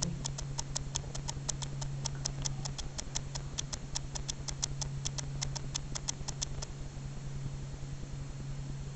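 Clicks from an automated newborn hearing screener: a rapid, even series of sharp ticks, about six a second, that stops about three-quarters of the way through, over a steady low hum.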